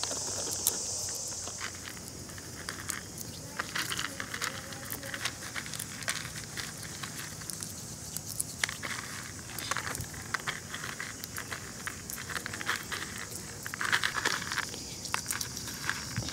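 Roasted peanuts rubbed by hand on a woven bamboo tray to loosen their papery skins: a steady stream of small dry clicks and crackles.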